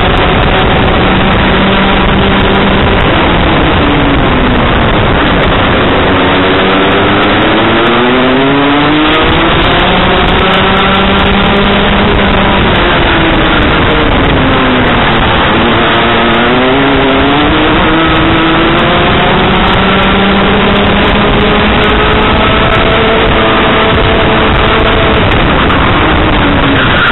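Junior Rotax kart's 125cc two-stroke single-cylinder engine heard onboard at racing speed, loud throughout. Its pitch drops twice as it slows for a corner and climbs back up as it accelerates down the following straight.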